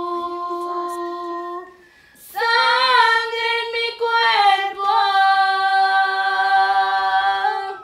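A woman singing a slow Spanish-language ballad, holding the song's last notes: one long note, a short breath, then two more long held notes that fade out at the end.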